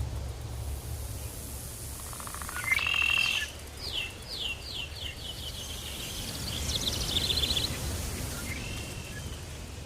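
Several wild birds calling in tropical forest over a steady low rumble. About three seconds in comes a burst of calls, then a quick run of short falling whistles, and later a fast trill.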